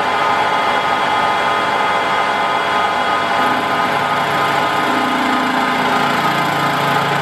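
Metal lathe running at about 850 RPM, a steady machine whine. From about halfway in a lower tone joins as the tool starts taking a facing cut across the flange.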